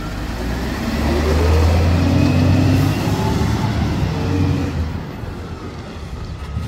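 Side-loading garbage truck's diesel engine revving as the truck pulls away, the rumble swelling with rising pitch about a second in, then fading as it drives off up the street.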